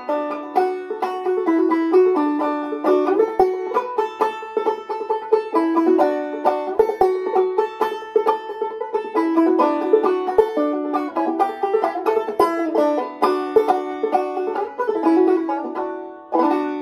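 Open-back banjo in open A tuning (aEAC#E) played clawhammer style: a brisk instrumental run of plucked notes and brushed strums, ending on a final chord near the end that rings out and fades.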